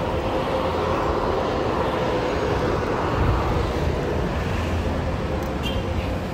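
Wind noise on the microphone and tyre rumble from a road bike rolling slowly over concrete, with a faint steady hum underneath. A brief high click near the end.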